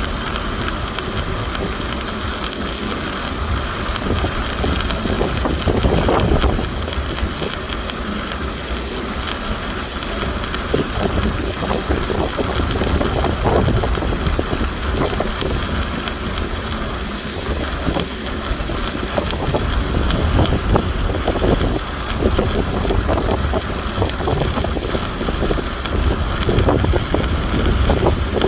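Stick arc welding: the electrode arc crackling and sizzling steadily with irregular pops, over a constant low hum.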